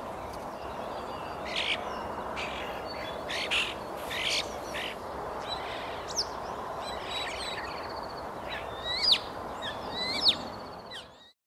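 European starling singing: a jumble of short gliding whistles, harsh noisy notes and a buzzy rattle, over steady background noise. Two sharp whistles near the end are the loudest, and the sound cuts off suddenly just before the end.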